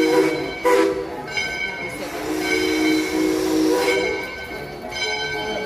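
Steam locomotive's chime whistle blowing in several blasts, a short one about a second in and a longer one of about a second and a half in the middle, over a hiss of steam.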